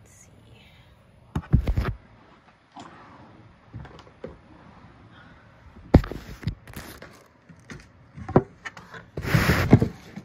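Handling noises as a gift box is taken out of its clear plastic bag: scattered knocks and thumps, with a short rustle of the plastic near the end, the loudest sound.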